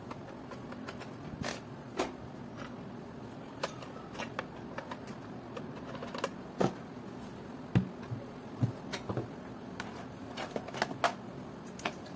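Irregular clicks and light knocks of a Kenwood hand mixer's plastic housing being handled and set against a table, with a few duller thumps past the middle, over a steady low hum.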